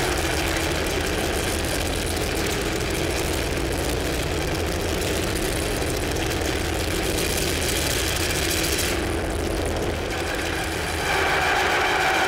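Electronic noise music: a dense, steady wash of hiss and low rumble from a feedback-and-noise rig. About nine seconds in the highest hiss drops away, and near the end several steady ringing feedback tones come back in.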